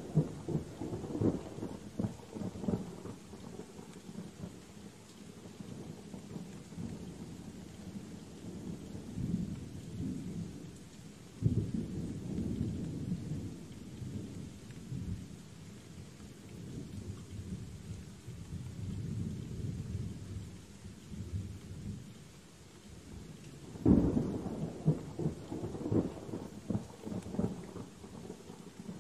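Steady rain with rolling thunder. A fresh thunderclap breaks about eleven seconds in and another near the end, each rumbling on low for several seconds before fading back under the rain.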